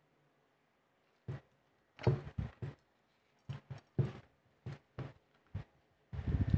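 Hands handling split eggplants on a plate: a string of irregular soft knocks and rubbing starting about a second in, getting busier near the end.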